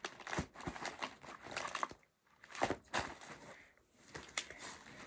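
Irregular rustling and light knocks of packaged candy and basket items being handled, with a short pause about two seconds in.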